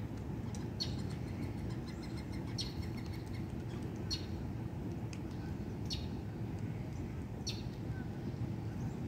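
Birds chirping, about six short high chirps spread through, over a steady low background rumble.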